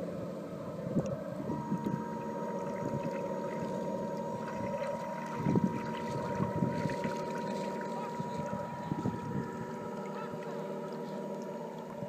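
Radio-controlled model tug boat's motor running steadily as the boat cruises, with a thin steady whine that sets in about a second and a half in.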